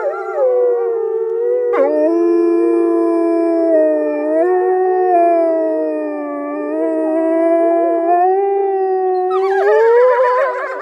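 Canine howling: long, drawn-out howls held at a steady pitch, with a brief catch about two seconds in and a rise in pitch near the end.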